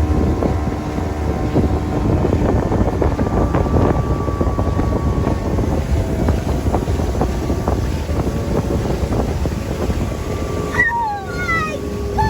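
Motorboat engine running at speed, a steady hum with water and wind rush buffeting the microphone. About eleven seconds in this gives way to a few short, falling whine-like calls.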